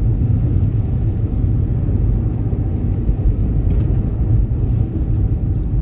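Steady low road rumble and engine noise inside the cabin of a moving car.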